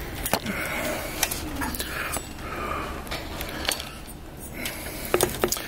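E-bike wiring harness cables being pushed up into the frame by hand: rustling of the cable bundle with scattered small clicks and taps from the connectors and cables against the frame.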